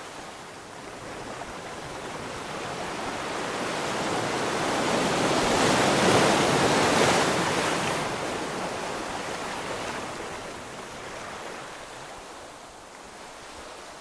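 Ocean waves: one wave builds steadily, breaks loudest about halfway through, then washes back and fades.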